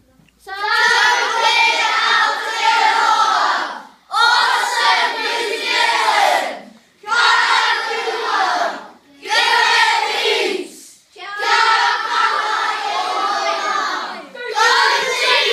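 A class of children calling out short Māori-language phrases of encouragement together in unison, in a sing-song chant. There are about six phrases, each a second or three long, with brief pauses between them.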